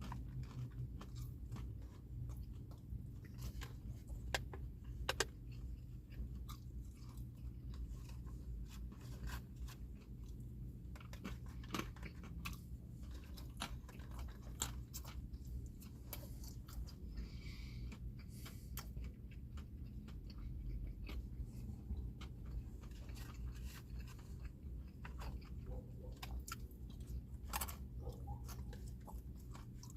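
Close-up chewing of almonds with turkey and Colby Jack cheese: many small crisp crunches scattered throughout, over a low steady hum.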